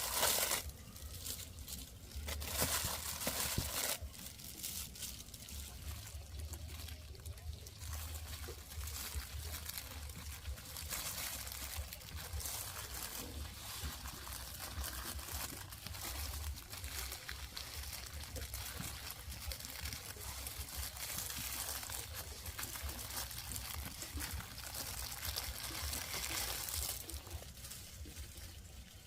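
Water trickling, an uneven hiss that swells and fades.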